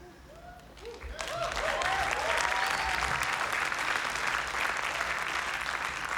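Live audience applause breaking out about a second in and quickly building to full clapping, with whoops and cheers rising over it as a song ends.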